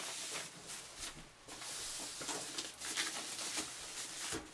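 Protective packaging wrap rustling and crinkling in irregular bursts as it is pulled and torn away, with a soft knock near the end.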